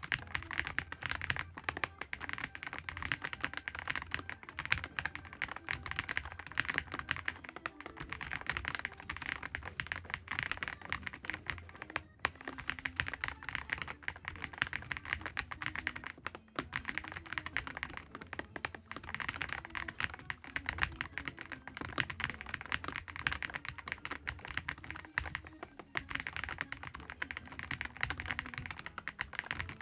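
Fast, continuous typing on a Dustsilver D95 mechanical keyboard: a dense run of keystroke clacks, broken by brief pauses about 12 and 16 seconds in.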